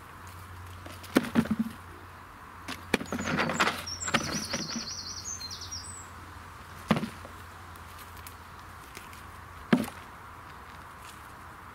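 Onions being pulled from the soil and dropped into a plastic bucket: a few scattered thuds and rustles, with a busier patch of knocking and rustling about three to five seconds in. A bird gives a short warbling chirp over the middle.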